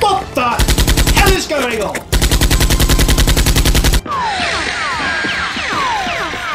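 Two bursts of rapid automatic gunfire, dubbed-in machine-gun sound effects at about ten shots a second: a short burst about half a second in, then a longer one of about two seconds. Music with falling swoops plays around them.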